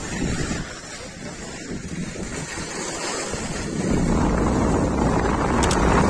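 Wind buffeting the microphone and skis sliding over packed snow during a downhill ski run, a rough rushing noise with a low rumble that gets louder about four seconds in.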